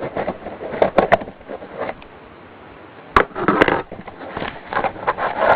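Cardboard shipping box being cut open along its tape and handled: scattered sharp clicks and crackling of cardboard, a short lull, then a sharp snap followed by denser crackling and rustling.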